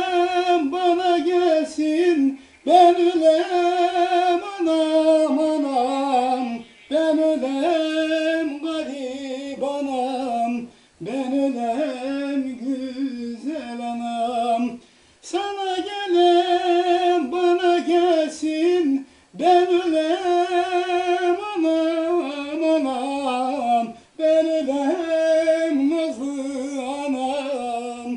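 A man singing a Turkish folk song (türkü) unaccompanied, in long, ornamented phrases with a wavering voice on the held notes, with short breath pauses between phrases about every four seconds.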